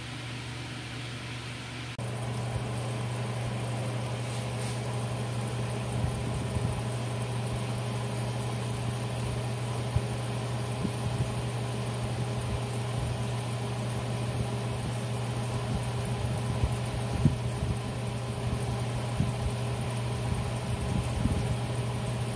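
Electric oven's fan running with a steady hum that steps up slightly about two seconds in. Faint scattered crackles sound through the hum as marinated chicken roasts.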